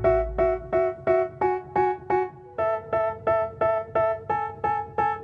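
Background music: a repeating electric piano figure of short notes, about three a second, with the bass dropped out.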